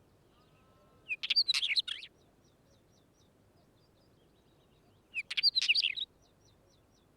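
Wheatear singing: two short song phrases of quick, jumbled high notes, each about a second long, one about a second in and one about five seconds in. Faint short high notes repeat in the background between the phrases.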